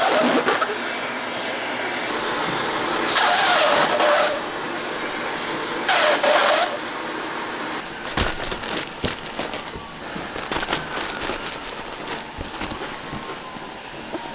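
Food-factory machinery running with a steady loud whir and hiss, swelling into three louder hissing blasts of about a second each. About eight seconds in, the whir drops and irregular clattering and knocks take over.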